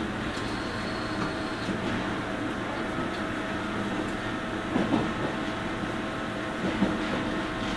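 A JR West 103 series electric train under way, heard from inside its MoHa 103 motor car: a steady running noise with hum at constant pitch, and a few rail-joint clacks about five and seven seconds in.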